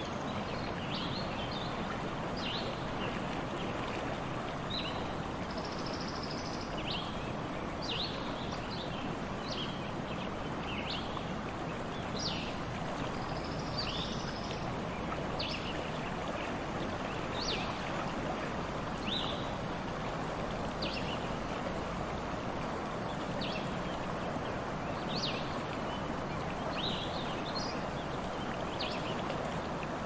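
A babbling brook: water running steadily, with frequent short, high chirps from small birds over it.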